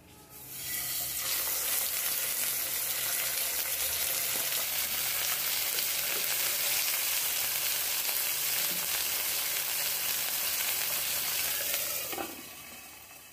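Marinated pork belly slices sizzling in hot oil in a pan. The sizzle starts as the meat goes in, about half a second in, runs steadily, and dies down near the end as a lid covers the pan.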